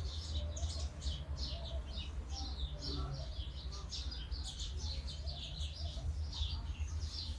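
Small birds chirping in quick, overlapping calls throughout, over a low steady rumble.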